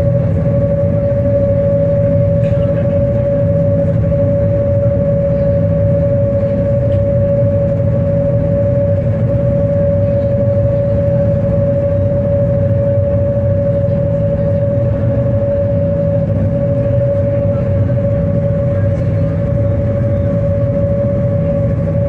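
Boat engine running steadily: a constant low rumble with a steady whine above it.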